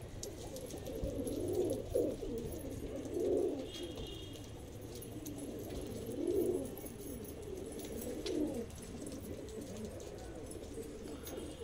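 Domestic pigeons cooing: low coos that swell up four times, a second or more apart.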